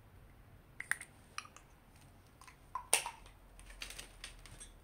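Small hand-pump mister spraying rose water: a scattering of quiet short clicks and brief spray bursts, the loudest about three seconds in.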